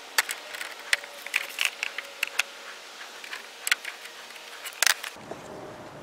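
Pliers and wire clicking and scraping against a metal wire-mesh basket: an irregular run of sharp metallic ticks that stops about five seconds in.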